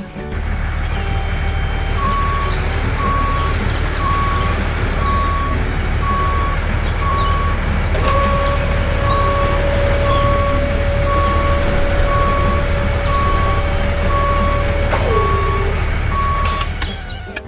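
Truck engine running low and steady with a reversing alarm beeping over and over. A steady whine joins about eight seconds in and drops away near fifteen seconds, and a short hiss comes just before the end.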